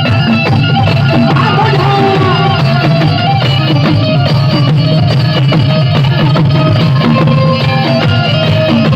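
Music with drums, playing steadily throughout.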